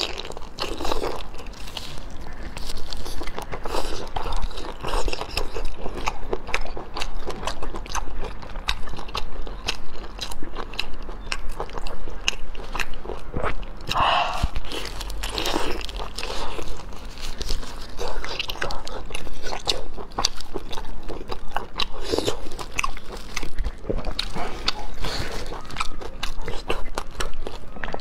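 Close-miked eating of razor clams in chili sauce: wet chewing and biting with lip smacks, full of small crackling mouth clicks.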